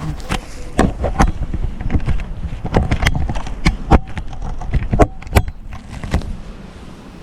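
Irregular sharp knocks, clicks and clatter from a polystyrene nucleus hive being handled and opened up for inspection, thinning out near the end.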